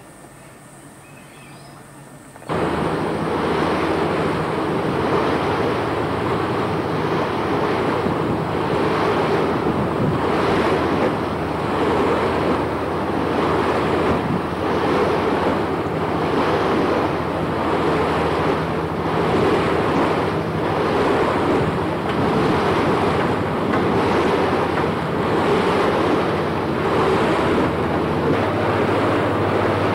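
A river cruise boat under way: the engine's steady hum under a loud rush of wind and water over the camcorder microphone. It comes in suddenly about two and a half seconds in, after a quieter start.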